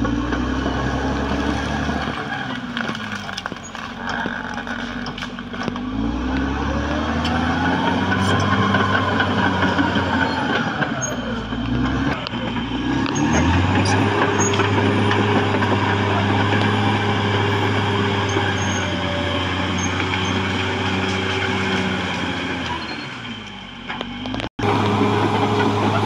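Caterpillar D6R XL crawler bulldozer's diesel engine working, its pitch dipping and recovering twice before being held high and steady for about ten seconds. The engine sags briefly near the end and cuts out for an instant, with light clanking from the steel tracks throughout.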